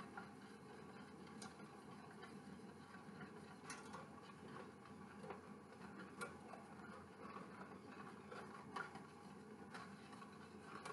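Faint wire whisk stirring lemon pie filling in a stainless steel saucepan, its wires brushing the pan, with a few light irregular ticks where they tap the metal.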